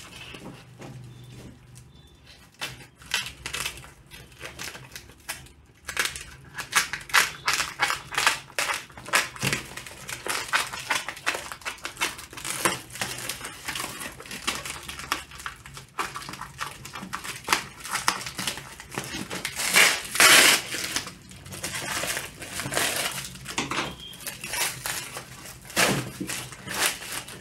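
Clear plastic stretch-wrap being torn and pulled off a cardboard parcel: a long run of irregular crinkling and crackling, with a louder rip about two-thirds of the way through.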